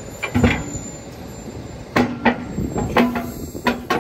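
A series of sharp metallic clanks and knocks, about six at irregular intervals, each with a brief low ring, over a steady low rumble.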